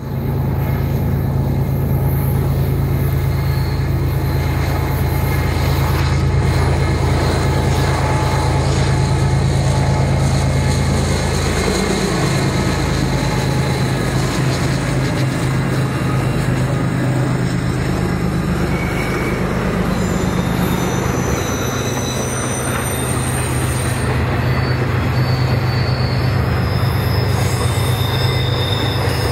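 BNSF diesel locomotive passing with a loud, steady engine drone whose pitch drops as it goes by about twelve seconds in. A string of empty flatcars then rolls past, with high-pitched wheel squeal in the later part.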